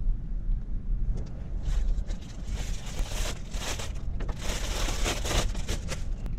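Clear plastic bag crinkling and rustling in bursts as a scuba mask is unwrapped by hand, over a steady low hum.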